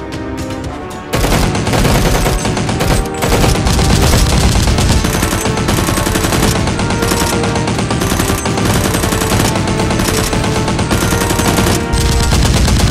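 Music, then about a second in a long, loud, rapid burst of machine-gun fire sound effects that keeps going, with music still faintly underneath.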